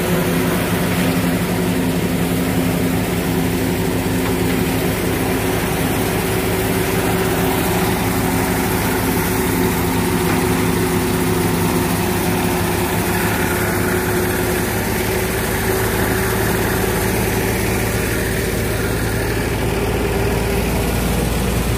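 Tractor-driven thresher running steadily while threshing fenugreek: the diesel tractor engine runs under load and the threshing machine churns along with it.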